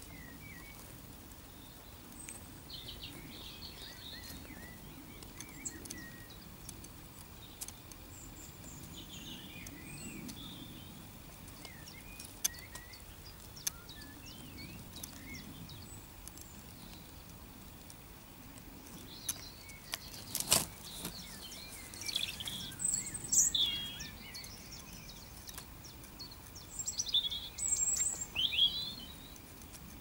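Wild small birds chirping and calling in scattered short phrases over a faint low background rumble. The calls grow louder and busier about two-thirds of the way in and again near the end, and there is one sharp click shortly before the first of these.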